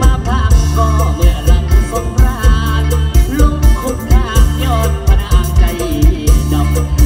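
Isan mor lam band playing live with a male singer: a steady, heavy kick-drum beat about twice a second under bass, and a voice singing in wavering, ornamented lines.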